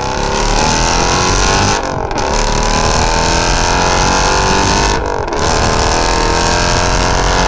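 Ford Mustang GT's 5.0 V8 through a Corsa Xtreme cat-back exhaust, heard loud at the tailpipe while the car accelerates hard. The pitch climbs and breaks off briefly twice, about two and five seconds in, dropping back each time as at upshifts.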